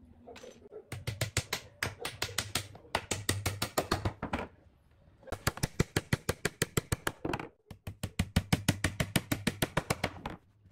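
Hammer driving nails through a wooden board into the end of another at a box corner: four runs of rapid, even strikes, several a second, with short pauses between runs.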